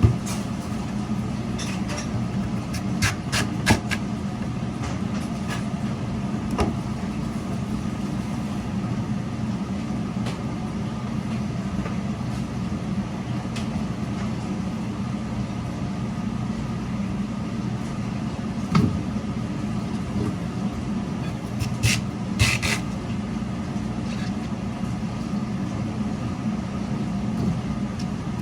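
Radish slicing machine running with a steady motor hum, with scattered sharp clicks and knocks.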